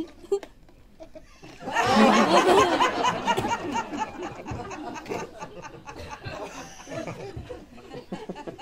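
Audience laughing: the laughter breaks out loudly about two seconds in and slowly dies down.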